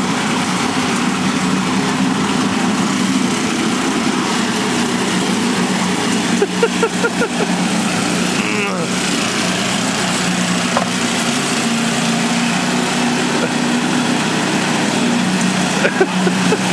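Small engine of a powered scissor-type lawn mower running at a steady speed as it is pushed along.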